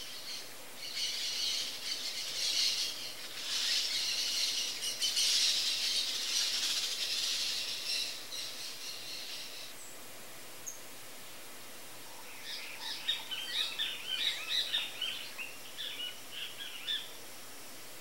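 Small birds twittering: a dense, high chatter for about nine seconds, then after a short lull a run of separate quick high chirps.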